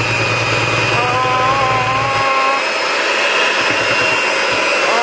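Electric hand mixer running steadily, its beaters whirring through cake batter in a plastic bowl.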